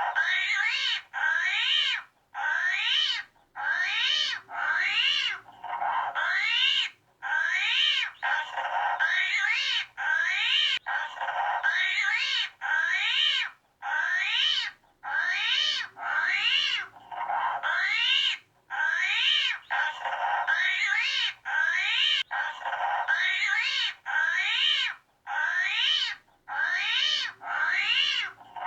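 Armadillo giving a long series of high squealing calls, each about a second long, rising then falling in pitch, with short pauses between them.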